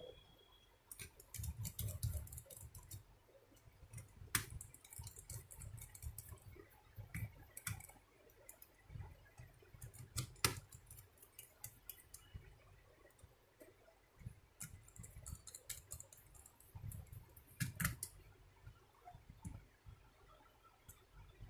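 Irregular small clicks and taps with low handling knocks, from a screwdriver and screws working in an Acer mini laptop's plastic casing during reassembly. A few sharper clicks stand out.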